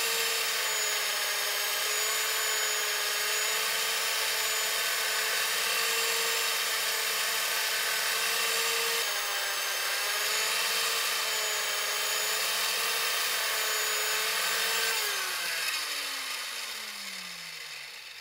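Valve refacer's spinning stone wheel grinding the face of a pitted exhaust valve: a steady motor whine over a grinding hiss, its pitch wavering slightly as the valve is swept across the stone. About fifteen seconds in, the motor winds down with a steadily falling pitch.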